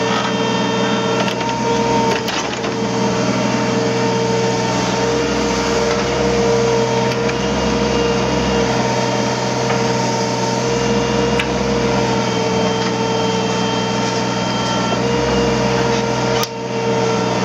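Hydraulic excavator running steadily, its engine and hydraulic pump giving a constant droning whine, with a brief drop in level near the end.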